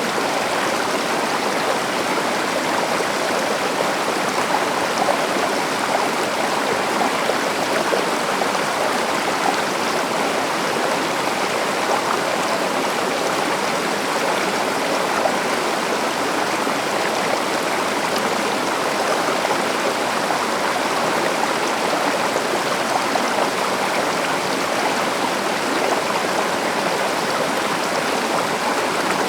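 A river or stream running over rocks, a steady rushing and babbling of water.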